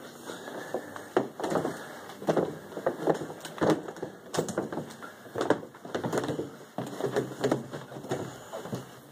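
Footsteps going down a hotel staircase, irregular thuds about two a second.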